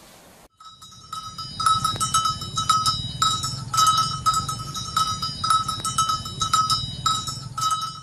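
Small metal bells clanking irregularly, about two or three strikes a second, over a low rumble; they start about half a second in.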